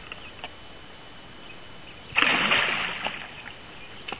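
A large longnose gar, hooked in the tail by a lure, splashes once at the surface about halfway through and dives; the splash starts suddenly and fades over about a second.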